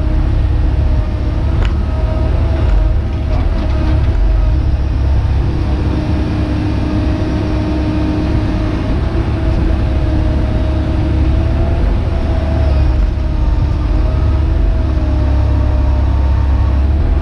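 Hydraulic excavator's diesel engine running under load, heard from inside the cab: a steady low rumble with the hydraulic pumps' whine wavering slightly as the boom, arm and bucket are worked, and a few faint clicks.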